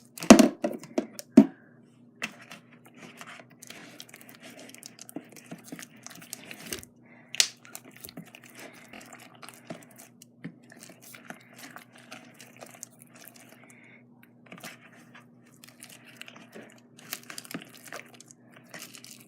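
Thick slime being stirred and folded in a mixing bowl, giving sticky crackling and tearing sounds, with a few sharp knocks of the utensil against the bowl, the loudest right at the start. A faint steady hum lies underneath.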